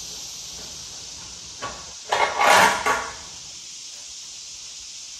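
Tool working a fuel-tank mounting bolt on a Harley-Davidson Sportster: a click, then a short burst of metallic rattling lasting about a second, roughly two seconds in.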